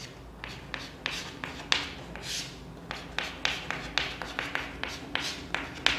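Chalk tapping and scratching on a chalkboard while an equation is written: a run of short, irregular taps with a few longer strokes.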